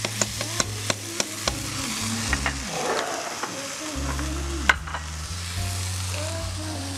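A spoon clicking quickly against a hot frying pan, about three sharp taps a second, stopping about a second and a half in, over the steady sizzle of frying in butter; one more sharp click a little before the end.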